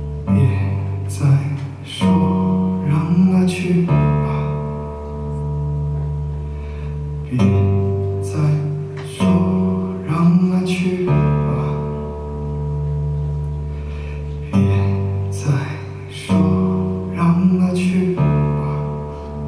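Live acoustic band playing an instrumental passage: guitars ringing out held chords with picked and strummed notes, over cajón hits, the phrase repeating every few seconds.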